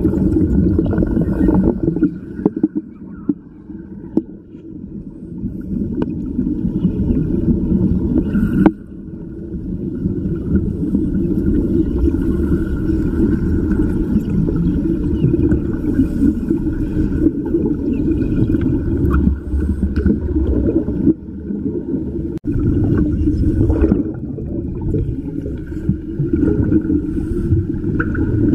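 Underwater cutting torch burning, heard underwater: a loud, steady rumbling gurgle of gas bubbles around the cut. It drops away for a few seconds near the start and briefly twice in the last third, with a sharp pop about nine seconds in.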